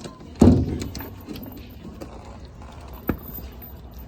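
A heavy thump about half a second in, then scattered light clicks and a single sharp knock near the end.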